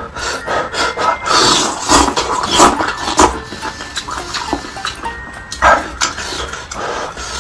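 Close-miked eating sounds: noodles slurped and chewed, wet and irregular, with several louder slurps spread through.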